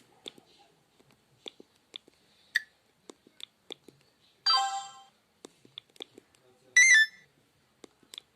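Sony Ericsson W595 mobile phone: a run of button clicks as its menu is scrolled, broken by two short message alert tones, one about four and a half seconds in and a brighter, higher chime near seven seconds.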